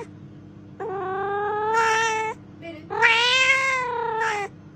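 A cat yowling: two long, drawn-out meows, the second louder than the first.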